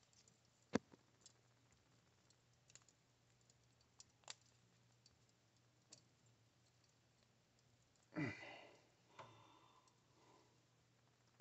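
Quiet, scattered small clicks and taps of metal being handled: freshly fused metal billets and their binding wire. One sharper click comes about a second in, and a brief rustling sound about eight seconds in.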